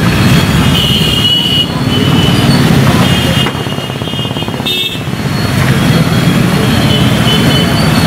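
Road traffic on a flooded street: motorcycle and car engines running as they drive through standing water, with tyres pushing through the water. Short high-pitched tones come through twice.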